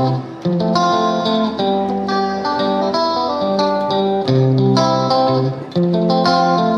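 Background music: a guitar playing a plucked melody over bass notes.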